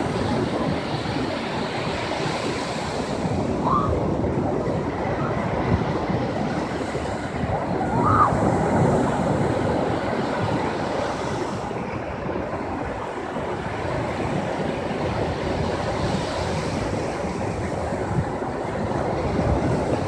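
Sea surf breaking on a sandy beach: a continuous wash of waves that swells and eases as each wave breaks and runs up the sand.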